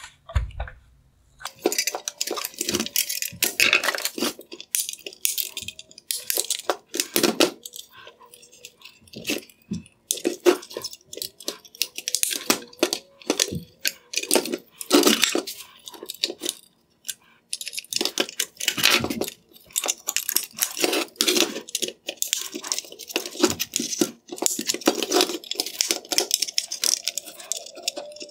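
Screwdrivers prying at the plastic housing of an LED headlight: irregular clicks, snaps and scraping as plastic clips pop loose and the plastic parts knock against each other.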